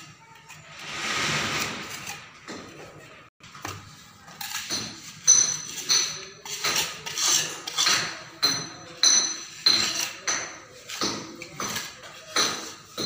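Steel mason's trowel working wet cement mortar around a plastic electrical box in a brick wall: one long scraping smear about a second in, then from about four seconds a run of sharp metallic taps and scrapes, roughly two a second, each with a brief ring from the trowel blade.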